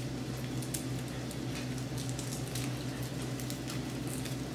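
Diced onions sizzling in hot olive oil in a frying pan, a steady sizzle with scattered light crackles, over a steady low hum.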